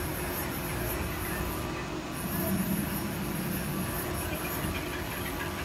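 DMG NEF 400 CNC lathe running a program with no cut, its turret slide traversing along the bed: a steady machine hum with a high hiss that cuts out briefly about two seconds in.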